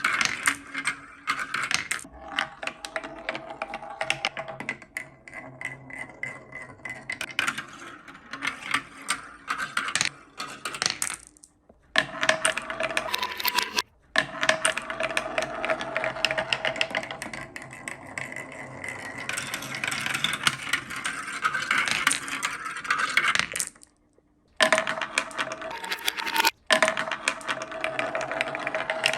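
Many marbles rolling and clattering down bamboo and wooden run tracks, a dense run of clicks and rattles as they knock against each other and the track. A few times it cuts off suddenly for a moment.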